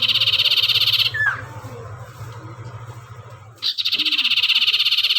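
Songbird of the kind kept in Indonesia as a sirtu or cipoh, in full song: a fast, rattling high trill lasting over a second, ending in a short down-slurred whistle, then repeated about three and a half seconds in.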